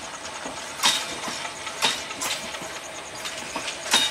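Broad-gauge passenger coaches rolling past, wheels clacking over the rail joints in sharp knocks about a second apart over the steady rumble of the moving train.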